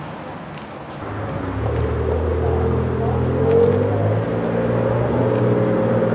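Diesel locomotive engine running with a low, steady drone that comes in about a second in and grows louder.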